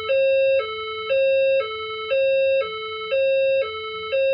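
System Sensor SPSR fire alarm speaker strobe sounding the alert signal tone of a voice evacuation message: a two-tone hi-lo signal that switches between a lower and a louder higher pitch every half second. It is the tone that signals a reported event in the building, ahead of the spoken announcement.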